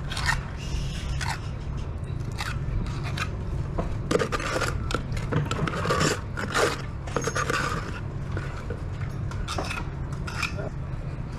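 Metal putty knife scraping and smearing a stiff wet cement mix onto a propeller's hub and nut, in short irregular strokes, over a steady low hum.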